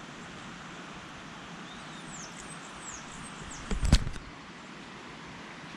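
Steady rushing of a river, with a bird giving a quick series of short, high, falling chirps about two seconds in. A single sharp knock with a low thud just before the four-second mark.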